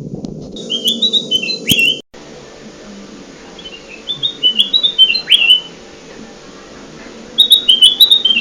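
Kutilang emas bulbul song: three repeated phrases, each a quick run of bright chirping notes that steps down and ends in a sharp falling note, with a steady low hum underneath.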